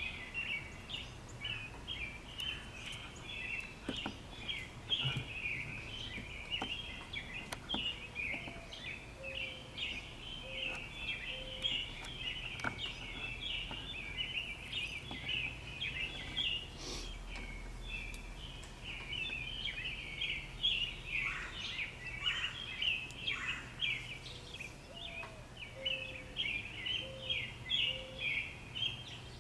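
Woodland chorus of insects chirping rapidly and continuously in a steady high band. Twice a short run of soft, lower notes joins in, and there are a few faint clicks.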